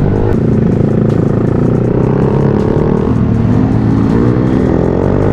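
Motorcycle engine running through an open aftermarket VMAX muffler while riding, its pitch dipping about three seconds in and then climbing as the revs rise.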